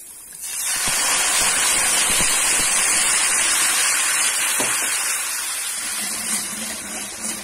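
White wine poured into a hot frying pan with browned onions, sizzling and hissing loudly as it deglazes the pan. The hiss starts about half a second in and slowly dies down toward the end.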